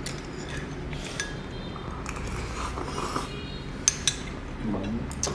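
Chopsticks and spoons tapping and clinking against small porcelain bowls and earthenware pots while eating, a handful of scattered sharp clicks, two close together about four seconds in.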